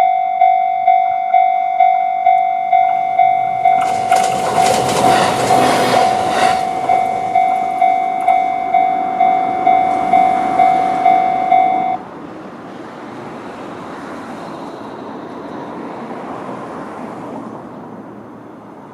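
Japanese railway level-crossing alarm, an electronic bell in the JR East Tohoku-style tone, ringing steadily about twice a second while a JR E129-series electric train passes. The train is loudest about four seconds in, with wheel clatter. The bell stops suddenly about twelve seconds in, and the train's running noise carries on and fades.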